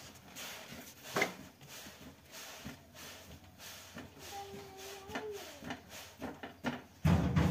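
Scattered light knocks and rubbing as a roti is pressed and turned by hand on a tava over a gas burner. There is a brief held tone about four seconds in, and a loud low thump near the end.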